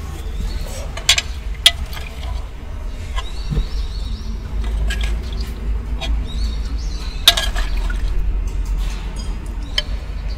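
Eating sounds from noodle soup: a few sharp clinks of a utensil against the takeout container and liquid sounds, over a steady low rumble inside the car.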